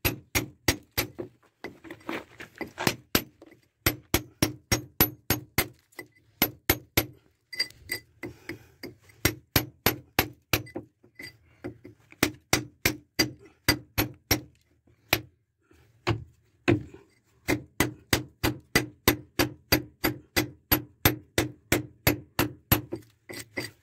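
Hammer striking a steel chisel held against a concrete floor, chipping the concrete: sharp metallic clinks at about three blows a second, in runs broken by short pauses.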